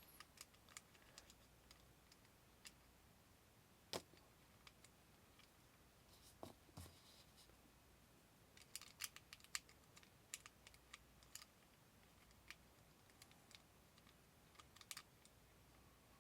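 Faint, scattered clicks and light metal taps of a screwdriver and small parts while the grip screws are taken out of a SIG P210 pistol, with one sharper knock about four seconds in and a run of clicks from about nine to eleven seconds.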